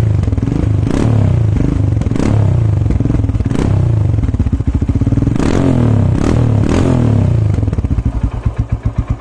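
Royal Enfield Himalayan's 411 cc single-cylinder engine running through a Greasehouse Grunt stainless-steel aftermarket exhaust, revved in repeated quick throttle blips with the revs dropping back between them. Near the end it settles into a slow, even idle thump with each firing stroke heard separately.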